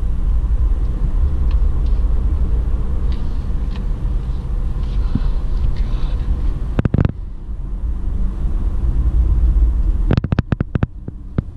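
Steady low rumble of a car driving, heard from inside the cabin. It briefly drops out about seven seconds in and turns choppy and uneven near the end.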